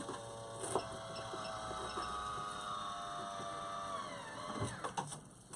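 Maxxair Maxxfan roof vent fan motor running with a steady whine. About four seconds in its pitch slides down as the fan is set to a low speed.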